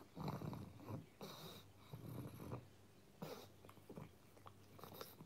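A pug's snuffly, noisy breathing as it sniffs at a person's fingers after a treat, in short irregular bursts.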